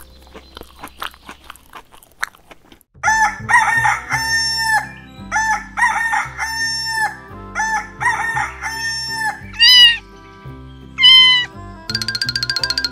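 Faint light tapping for about three seconds, then loud playful background music with cartoon-style effects: groups of short pitched notes, two quick rising whistle-like glides, and a fast, even buzz near the end.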